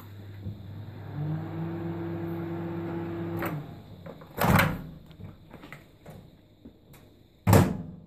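Microwave oven running with a steady hum, started by its door-release button being held half pressed, which lets the oven cook with the door latch partly released; the hum stops about three and a half seconds in. Two loud clunks from the door button and latch follow, a little after four seconds and near the end.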